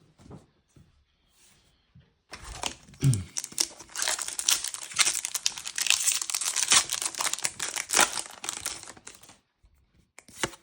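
A Disney Lorcana booster pack's wrapper being torn open and crinkled. After a couple of quiet seconds and some brief handling noises, a dense crackling runs for about six seconds and then stops.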